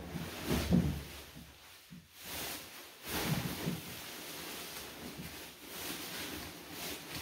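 Nylon backpack rain cover rustling in irregular bursts as it is pulled and stretched over the top of a backpack.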